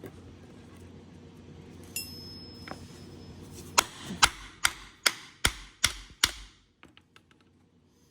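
A hammer striking seven quick, evenly paced blows, about two and a half a second, beginning a little under four seconds in, after a single earlier knock.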